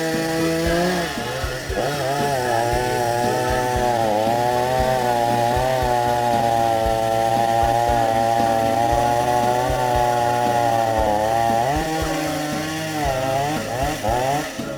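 Chainsaw running hard while cutting into the trunk of a large old hariara (fig) tree. Its engine pitch dips and recovers several times as the chain bogs in the cut, most clearly a few seconds in and near the end.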